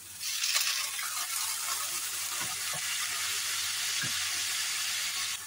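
Water poured into a hot wok of frying spice paste, sizzling with a loud hiss that starts suddenly and cuts off near the end. A few light knocks sound under it.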